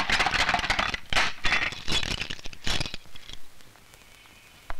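Barred steel cell door being shut and locked, a run of metallic rattles and clanks for the first three seconds, then quiet.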